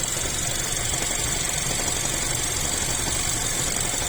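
Chery Tiggo 7 Pro Max engine running steadily with a knock in it, a fault whose cause the owner does not know; no error codes are logged.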